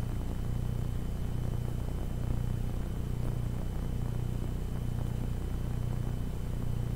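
Steady low hum that throbs just over once a second, with a faint thin high whine above it.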